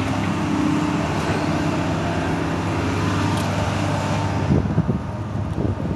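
Excavator's diesel engine running steadily with a low, even hum. About four and a half seconds in it drops back and wind buffets the microphone.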